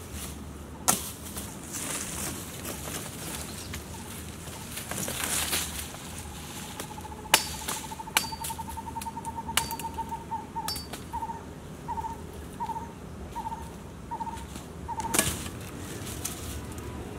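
Sharp woody cracks and knocks, several seconds apart, from cassava plants being cut and pulled up by hand, with dry leaves and stems rustling. In the middle a bird calls: a trill, then a run of evenly spaced whistled notes.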